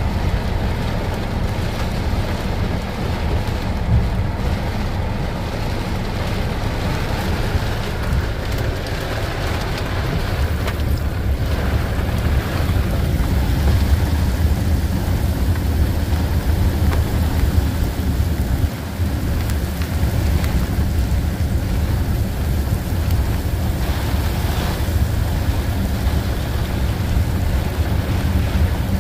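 Heavy rain pouring down, over the steady low rumble of a passing freight train of tank cars.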